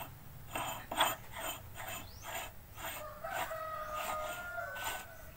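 A rooster crowing, one long held call starting about three seconds in, over a few short sharp clicks in the first seconds.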